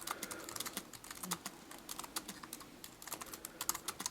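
Typing on a Logitech Illuminated Keyboard: quick, irregular clicks of its flat, low-travel keys.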